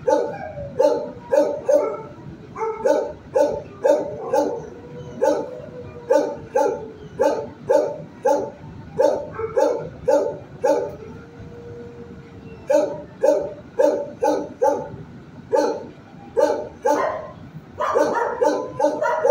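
Shelter dog barking repeatedly in the kennels, about two sharp barks a second, with a short lull a little past the middle.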